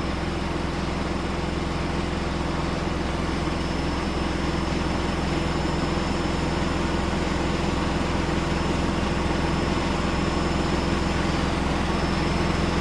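Steady mechanical hum and hiss with a low, even drone, unchanging throughout: the same background machine noise that runs under the talk, typical of a fan or air conditioner running in the room.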